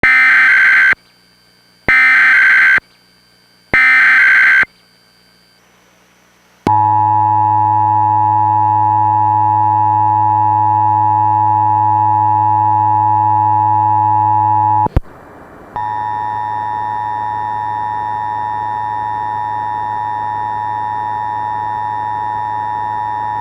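Emergency Alert System SAME header: three roughly one-second bursts of data warble. Then a steady buzzy tone for about eight seconds and, after a brief break, the steady two-tone EAS attention signal.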